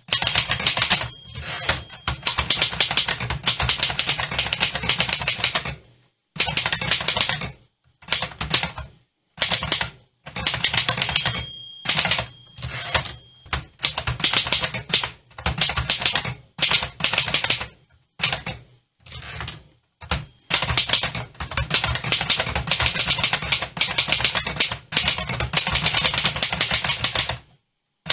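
Typewriter typing: fast, dense key strikes in several stretches, each cut off abruptly by a short silence. A few brief ringing bell tones sound among the strikes, typical of the typewriter's end-of-line margin bell.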